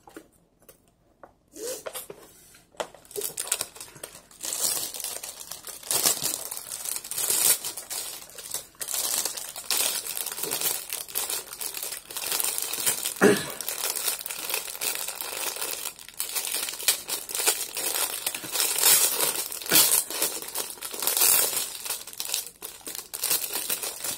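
Clear plastic wrapper of a packaged bakery bun crinkling and rustling as it is handled and the bun is pulled out of it. The crackling starts about a second and a half in and keeps going in uneven bursts.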